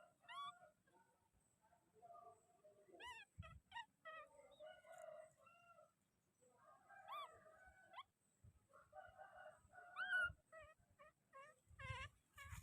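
Baby monkey squeaking and crying faintly, a string of short high-pitched calls, many rising in pitch, with a louder cluster near the end.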